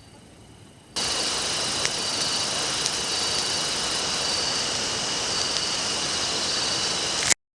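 A loud, steady hiss that starts abruptly about a second in and cuts off suddenly near the end.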